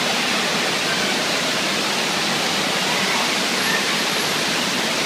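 Steady rush of water pouring out of a tube water slide into its splash-down runout pool.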